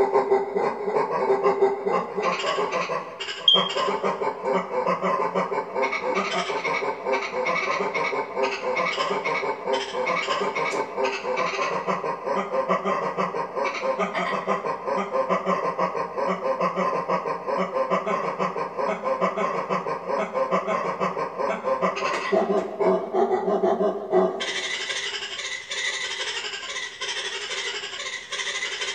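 Music playing continuously, with a fuller, brighter section coming in about 24 seconds in.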